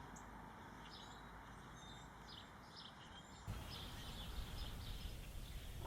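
Faint outdoor ambience: small birds chirping repeatedly over a low background rumble that gets suddenly louder about halfway through.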